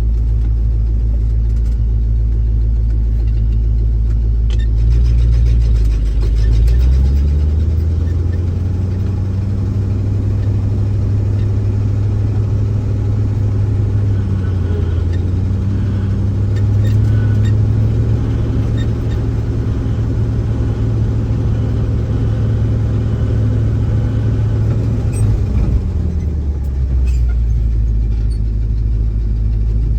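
Grain truck engine running at idle, brought up to a higher steady speed about seven seconds in and held there, then dropping back to idle near the end.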